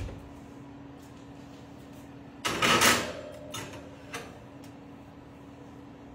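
Wall oven door opening with a knock, then a loud scraping clatter about two and a half seconds in as a glass baking dish goes onto the metal oven rack, followed by a few lighter knocks. A steady low hum runs underneath.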